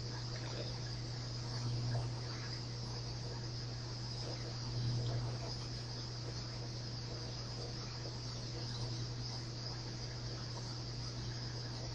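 Steady low hum and a steady high-pitched hiss through the whole stretch, with faint rustling around two and five seconds in as a foil trading-card booster pack is torn open and its cards handled.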